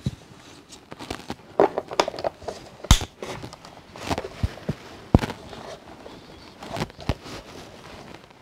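Hard plastic clicking and knocking as grey plastic strut pieces are pushed and clipped into the white plastic wall of a Hasbro Tantive IV Corridor toy playset: a scattered series of sharp clicks, the loudest about three seconds in and again about five seconds in.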